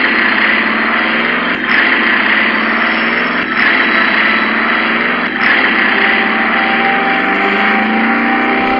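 Logo-intro sound effect: a loud, steady rushing roar that breaks briefly about every two seconds.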